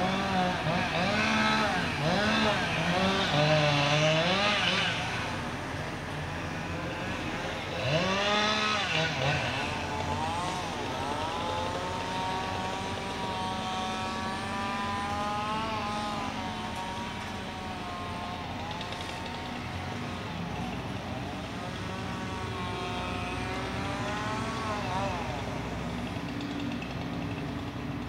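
Sumitomo SH240 log loader's diesel engine and hydraulics working under load as it swings and lifts logs with its grapple, the pitch rising and falling over and over. It is loudest in the first few seconds and again briefly about eight seconds in, with a steady engine hum underneath.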